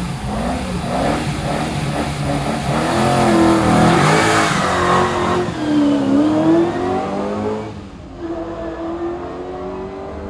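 Rover SD1 rally car's engine revving hard as it pulls away from a standing start, the pitch climbing and falling back several times through the gear changes. About eight seconds in the sound drops and carries on fainter as the car moves off.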